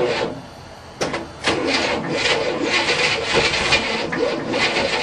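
1967 Cadillac V8 being cranked by its starter: a clunk as the starter engages, then a steady rhythmic cranking from about a second and a half in. The engine does not fire.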